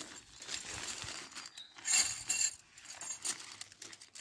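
Aluminium tent pegs clinking against each other inside a small nylon peg bag as it is opened and handled, with the fabric rustling; the sharpest clinks come about two seconds in.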